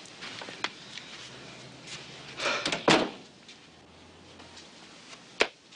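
A door being opened and shut, closing with a sharp thud about three seconds in, with a lighter click near the end.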